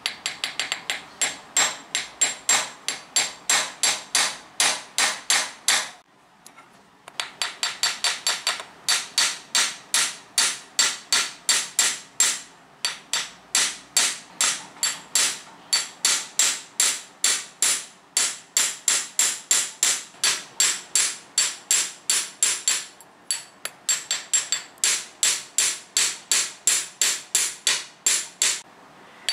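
Ball-peen hammer beating steel wire on a small steel bench anvil in rapid, steady blows, about three to four a second, each with a bright metallic ring. There is a short pause about six seconds in and a few briefer breaks. This is cold-forging: hammering the unheated wire flat to work-harden it.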